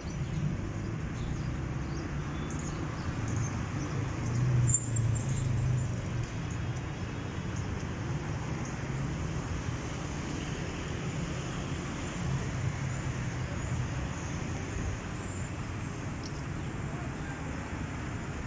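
Steady city traffic rumble from the boulevard's road, growing louder for a couple of seconds about four seconds in.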